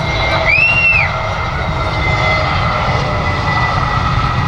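Jet airliner engines running with a steady low rumble and a steady high whine. About half a second in, a short whistle rises and falls once.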